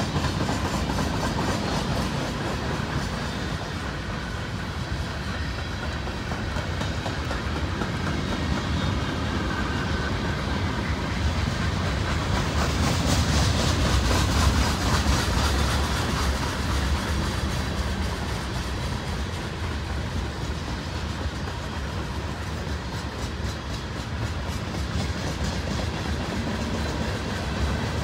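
Freight cars of a long mixed manifest freight train rolling past: a steady rumble of steel wheels on rail with repeated wheel clicks, swelling a little louder about halfway through.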